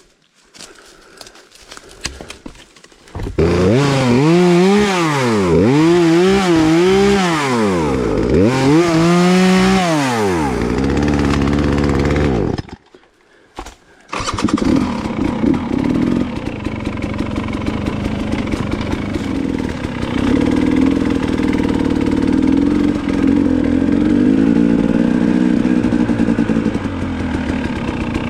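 Dirt bike engine being ridden. The revs rise and fall over and over with the throttle, then, after a short break about 13 seconds in, it runs more steadily.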